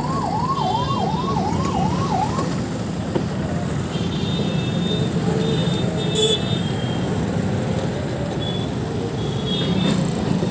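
Ambulance siren sounding a fast rise-and-fall, about three cycles a second, which stops about two seconds in; after it, a steady low background of street noise.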